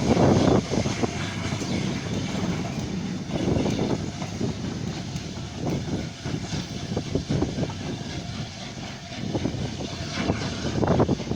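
Steam-hauled train, the A1 Peppercorn Pacific Tornado with its Pullman coaches, running on the line with a continuous rumble that swells near the start and again near the end.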